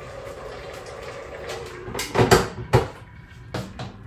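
Cookware being handled on a kitchen worktop: a cluster of sharp knocks and clanks about two seconds in as a cooker lid and pot are set down and moved, then two lighter clicks near the end.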